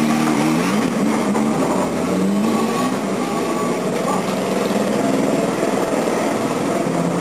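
Motorcycle engine revving as the bike pulls away, its pitch sweeping up and down a few times in the first couple of seconds, then running on more steadily.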